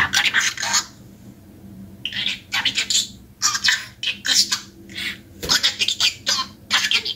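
Small pet talking bird chattering mimicked words in a fast, scratchy, high-pitched run of short bursts, with a brief pause about a second in.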